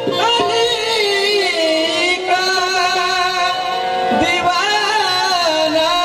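Qawwali music: a harmonium playing sustained chords while a male voice sings long, wavering held notes without words.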